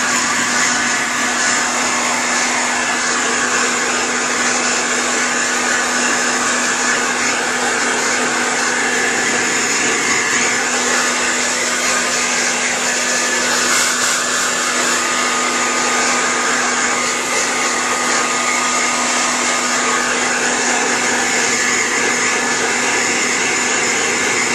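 Handheld hair dryer running steadily, a constant rush of air over a low motor hum, used to blow-dry a long-haired cat's fur.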